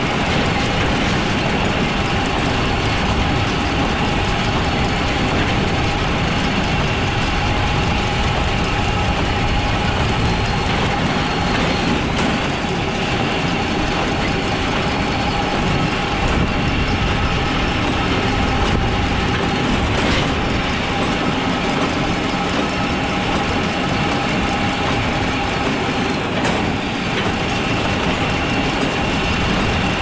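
Hay wagon rattling as it is towed across a field behind a New Holland 570 small square baler, with the baler and the Case IH Maxxum 5140 diesel tractor running at working speed. A steady, loud mechanical clatter throughout.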